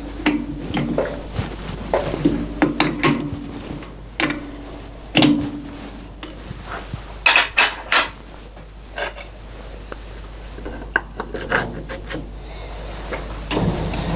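Irregular clinks, knocks and scraping of metal objects being handled, with bursts of sharp clicks about a quarter of the way in and again about halfway through.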